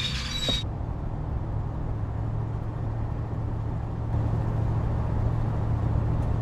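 Steady low engine and road hum inside a moving car's cabin. It cuts in about half a second in, right after loud chattering birds.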